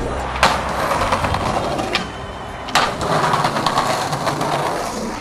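Skateboard wheels rolling over paving, with two sharp clacks of the board, about half a second in and near three seconds.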